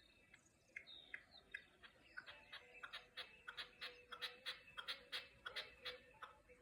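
A faint series of short, sharp calls from an unidentified bird. They come sparsely at first, then quicken to about three or four a second and grow a little louder.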